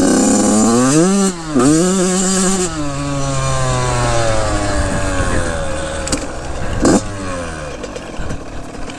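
Dirt bike engine revving up and down, then its pitch falling slowly as the rider comes off the throttle, with one quick throttle blip about seven seconds in.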